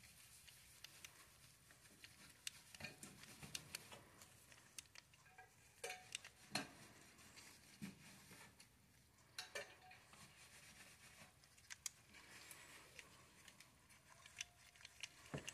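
Faint, scattered small clicks and light rubbing as an Olympic Penguin 204 spinning reel's metal parts are handled and turned in gloved hands.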